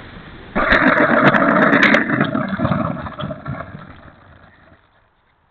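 RC model aircraft motor and propeller throttled up suddenly about half a second in, running loud with a few sharp crackles. The throttle is then cut and it winds down, fading to near silence near the end as the propeller slows to a stop.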